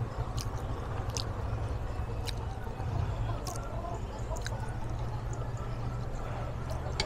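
A person chewing a mouthful of rice and vegetables, with a few light clicks of a spoon and fork against a plate, over a steady low background hum.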